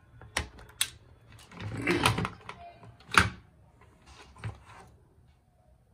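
Clicks and knocks from the housing of a Prestige induction cooktop as it is opened up and handled: a scattering of sharp knocks, the loudest about three seconds in.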